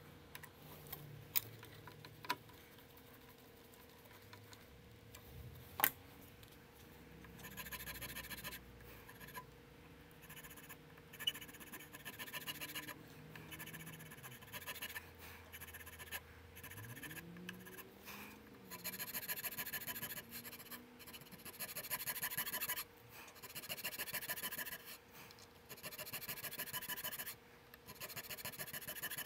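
Hand checkering file rasping across a wooden 1911 grip panel, cutting the checkering lines in repeated runs of short strokes that start about seven seconds in. A few sharp clicks come before it.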